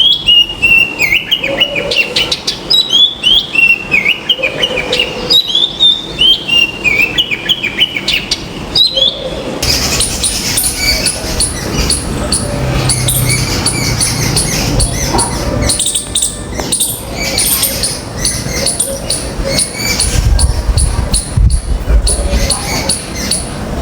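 Birds calling: for about the first ten seconds, loud repeated downward-sweeping chirps, several a second. Then the sound changes suddenly to a dense chatter of many high, quick chirps, with low rumbles underneath twice.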